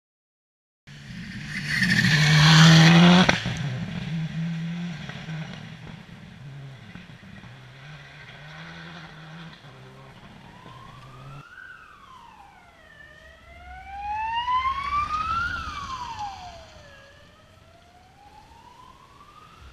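A rally car passes at speed, loudest for a couple of seconds just after the sound begins, then its engine fades off, stepping up through the gears. After a cut, a siren wails, rising and falling in pitch, louder in the middle as a car approaches.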